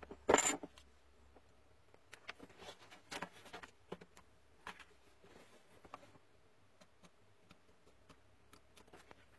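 Small tools and parts being handled during a repair of the earmuffs' charging port: a short, loud scraping burst about half a second in, then scattered light clicks and taps, thinning out toward the end.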